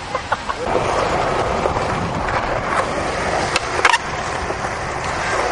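Skateboard wheels rolling on concrete, a steady rough rumble, with two sharp clacks of the board about three and a half to four seconds in.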